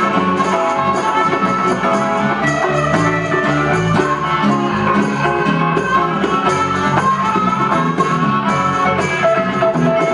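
Live band jamming: a harmonica played into a microphone leads over strummed acoustic guitars, an electric guitar and hand drums.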